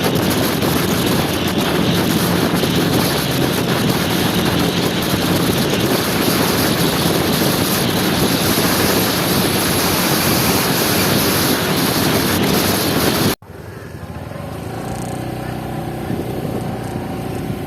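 Wind buffeting the microphone on a moving motor scooter, mixed with road and engine noise. About thirteen seconds in it cuts off abruptly to a quieter stretch of riding with a steady engine hum.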